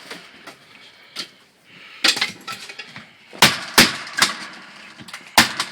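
Sharp knocks and bangs from window replacement work, about five separate hits, most of them in the second half.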